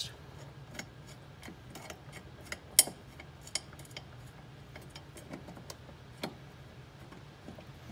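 Scattered small metallic clicks and ticks from nuts and bolts being fitted by hand to a ball joint on the upper control arm, with one sharper click about three seconds in, over a low steady hum.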